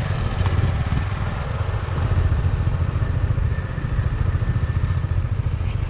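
KTM Adventure motorcycle's single-cylinder engine idling steadily, with no revving. There is one brief click about half a second in.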